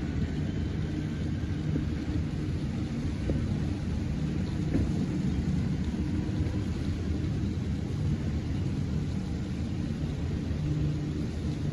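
Steady low rumble with an engine drone underneath: a fast boat's engines running flat out across the river, with wind on the microphone.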